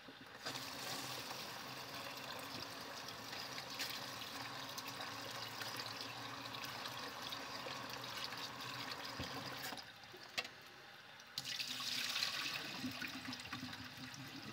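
Kitchen tap running into a bowl of rice as it is rinsed, a steady rush of water. It stops for a second or two about ten seconds in, with a single click, then runs again.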